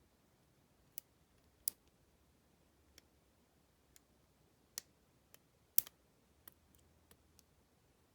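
Sharp, irregular clicks of a lock pick working the pins of a Master Lock brass laminated padlock, about ten in all, the loudest a little under six seconds in.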